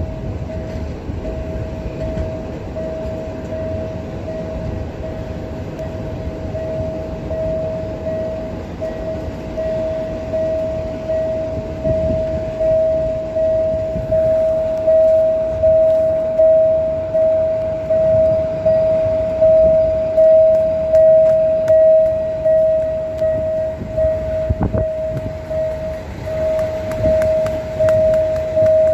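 Train rolling past a level crossing while the crossing's warning signal sounds one steady high tone, over the rumble of the train running. About halfway through, an even pulsing beat becomes stronger.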